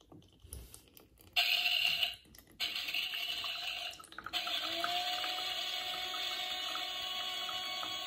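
Toy coffee machine's small electric pump running and pouring a thin stream of water into a plastic cup: a steady hum with trickling water. It starts about a second and a half in, after a few light plastic clicks, and breaks off briefly twice before running on evenly.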